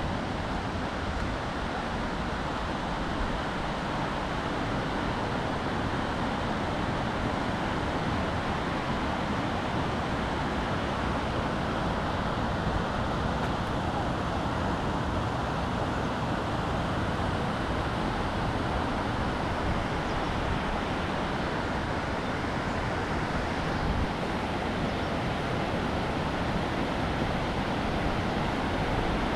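Fast, shallow mountain river rushing over rocks and rapids, a steady broad hiss of water, with wind buffeting the microphone.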